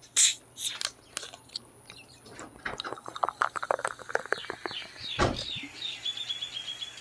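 A plastic Fanta bottle is twisted open with short hisses of escaping gas. Orange soda is then poured into a drinking glass, glugging and fizzing, and the pitch rises toward the end as the glass fills. There is a single thump about five seconds in.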